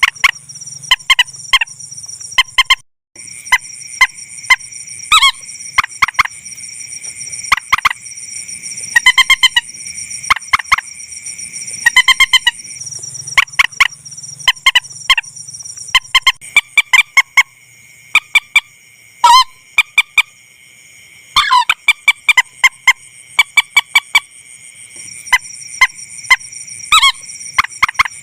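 Recorded rail (mandar) calls played as a lure for netting: loud, sharp, clipped notes repeated in irregular runs, a few drawn out into short stuttering trills. A steady high whine runs underneath, and the sound cuts out briefly near the start.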